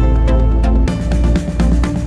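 Background electronic music with a steady beat; it shifts to a new section a little under a second in.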